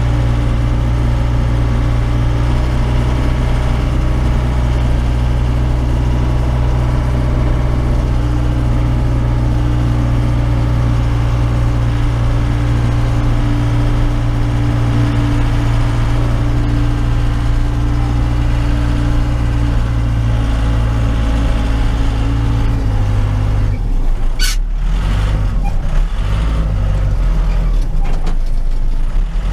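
Case 580 Super K backhoe's four-cylinder diesel engine running steadily under load, heard from inside the cab. About 23 seconds in the engine note shifts. A sharp clank follows about a second later, and a few more knocks come near the end.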